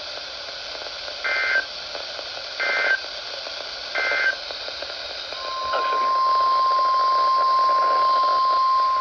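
NOAA Weather Radio emergency alert over a hissy radio signal: three short screeching SAME digital header bursts about a second and a half apart, then the steady 1050 Hz warning alarm tone starting about five and a half seconds in. The sequence marks the start of a new alert, here a tornado warning.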